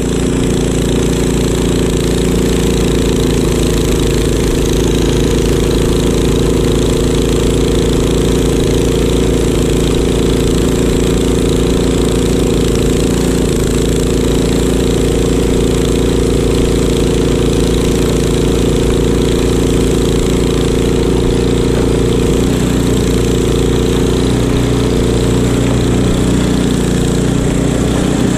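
Craftsman two-stage snowblower's gas engine running steadily under load while the auger and impeller chew through deep snow and throw it out of the chute. The engine note shifts slightly about three quarters of the way through.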